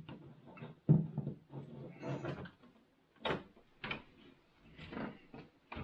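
PC case being handled: a series of knocks and scrapes, the loudest about a second in.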